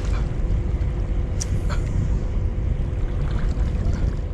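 Wind buffeting the microphone in a steady low rumble, with a faint steady hum underneath and two sharp clicks close together about a second and a half in.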